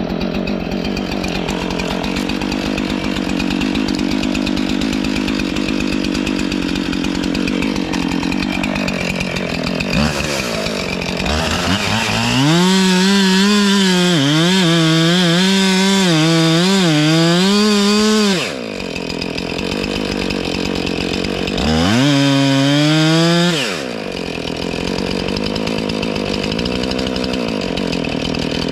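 Two-stroke chainsaw idling, then opened up to full throttle for about six seconds of cutting, its pitch wavering under load, dropping back to idle, then a second, shorter full-throttle cut of about two seconds before idling again.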